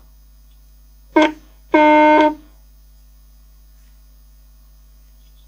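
Crown portable cassette recorder's speaker giving two loud, steady-pitched buzzing tones, a short one about a second in and a longer one just after, over a constant mains hum. These are the recorder's funny noises, the sort of instability the repairer puts down to failing capacitors.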